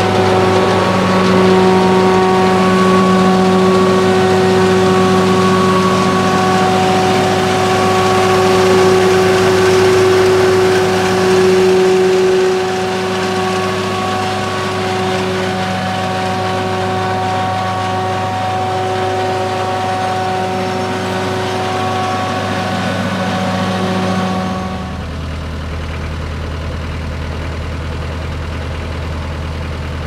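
Altec WC126A wood chipper's Kubota V2203-M diesel engine running at a steady speed. Near the end the upper tones drop away and it settles to a lower, quieter idle.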